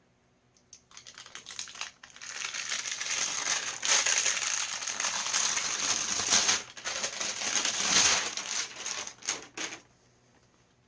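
Sheet of adhesive-backed heat shield material crinkling and rustling as it is handled, peeled and pressed onto a steel firewall, with many small crackles; it starts about a second in and stops near the end.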